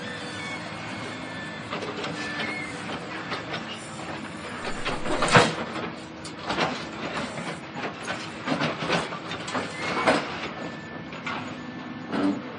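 Heavy demolition machinery working on a building: a steady machine drone under irregular knocks and crashes of breaking material, the loudest crash about five seconds in.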